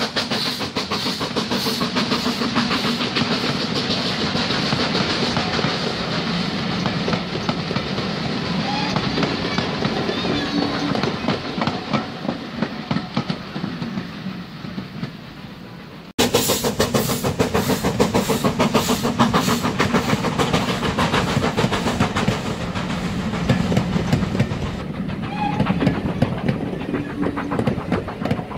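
Passenger coaches of a steam-hauled train rolling past, their wheels clattering rapidly over the rail joints. The clatter fades as the train draws away, breaks off abruptly about halfway, then comes back loud and close for the rest.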